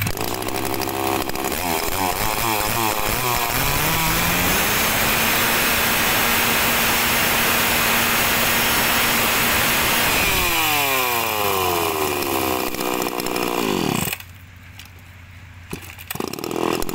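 Shindaiwa 350 two-stroke chainsaw running. It starts with a few quick throttle blips, then is held at high revs for several seconds. It winds down and drops to a much quieter running about fourteen seconds in, with another short blip of throttle near the end.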